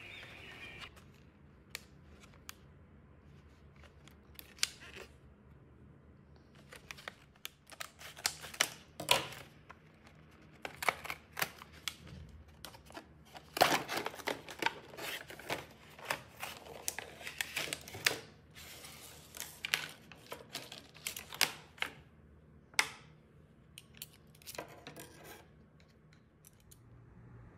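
Stiff clear plastic blister packaging being handled and opened to take out a set of knives: an irregular run of crackles, clicks and rustles, busiest in the middle.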